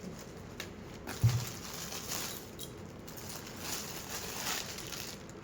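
A dull thump about a second in, then rustling and crinkling as a newly unpacked sari and its packaging are handled and unfolded.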